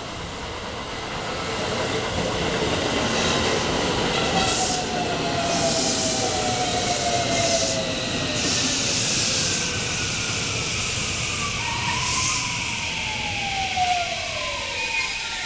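JR West electric commuter train running into a station platform with steady rumble and rail noise. Its motor whine glides down in pitch as it slows, and short bursts of hiss come every second or two.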